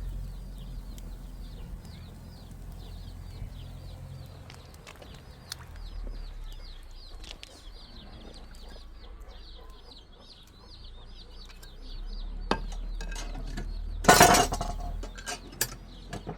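Birds chirping in a quick, steady run of small high calls, with a loud clatter about 14 seconds in followed by a few sharp clinks, like metal dishes or a tray being handled.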